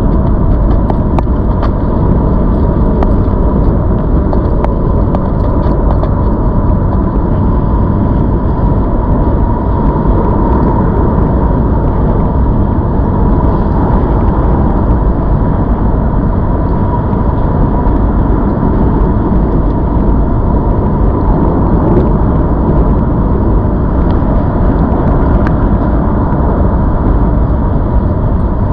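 Steady rush of wind and rolling noise from riding a ZOOZ electric bike, with a faint steady whine above it.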